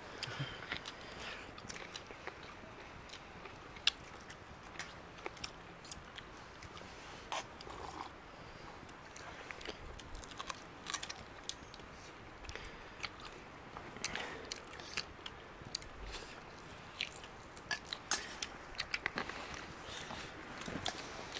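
Someone eating goat meat curry with rice: close chewing and crunching, with irregular sharp clicks throughout.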